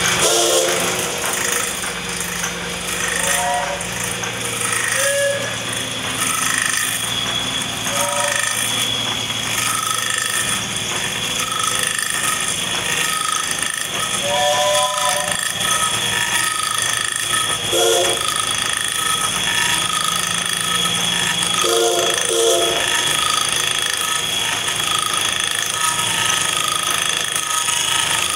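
Pratt and Whitney duplicating lathe running and cutting a wooden hatchet handle: a steady machine hum with a high whine and scattered chatter from the cutter on the wood. Faint voices come and go in the background.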